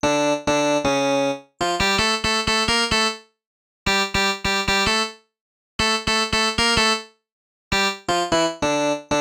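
An electronic keyboard with a synthesized piano-like sound plays a melody in short phrases of quick notes. Each phrase lasts about a second and a half and is followed by about half a second of complete silence.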